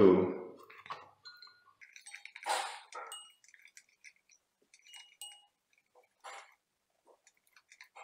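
Scattered soft rustles and small clicks of fingers handling insulated electrical wires and a plastic push-in wire connector, with a few faint, very short high pings.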